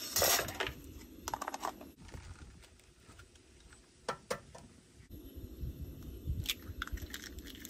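Small clicks and knocks of camp cooking: utensils, a butter bowl and a metal sandwich press handled on a camp stove. Near the end comes a quick run of taps as an egg is cracked against a steel cup. A low rumble runs underneath.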